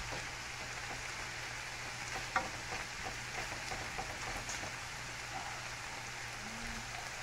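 Longaniza sausage and mushrooms sizzling steadily in a frying pan while a spatula stirs them, scraping and tapping the pan, with one sharper knock about two and a half seconds in.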